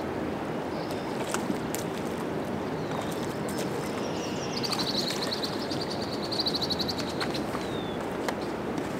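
Shallow river water rushing steadily over rocks, with a hooked smallmouth bass splashing at the surface a few times. About halfway through, a bird gives a rapid high trill lasting close to three seconds.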